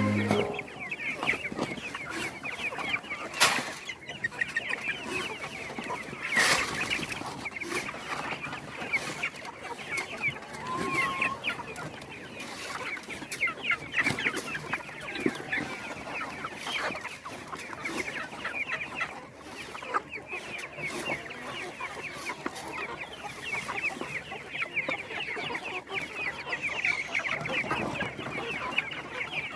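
A flock of chickens calling all at once: many short, high calls overlapping in a continuous chatter, with a couple of sharp knocks early on.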